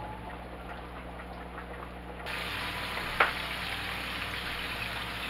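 Chicken pieces frying in hot oil in a skillet: a steady sizzle and bubbling that grows louder and brighter a little over two seconds in, as the splatter screen comes off the pan. A single sharp click sounds about a second after that.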